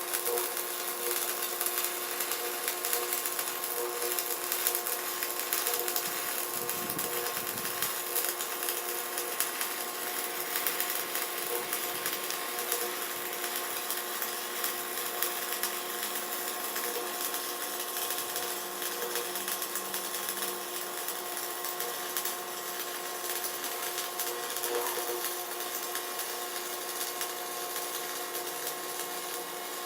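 A power grinder running steadily on steel, a constant whine over harsh grinding noise.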